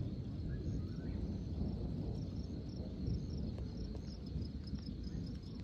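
Crickets chirping in quick, evenly repeated high notes, over a low steady rumble of wind noise.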